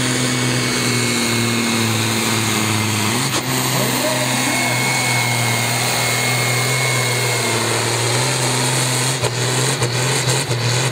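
Ford 9000 pulling tractor's diesel engine running flat out under full load while dragging the weight-transfer sled, a dense, steady sound with a thin high whistle over it. Near the end the sound breaks up in a few brief dips as the run ends.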